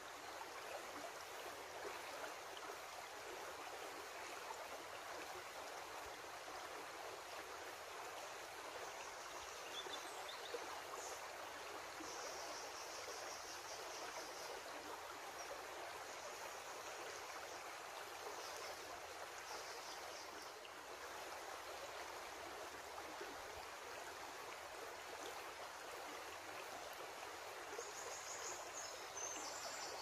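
Shallow creek running steadily over a rocky bed: an even, continuous babble of water.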